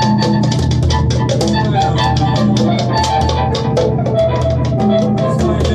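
Band music: drums beaten in a busy, steady rhythm over guitar and a low bass line.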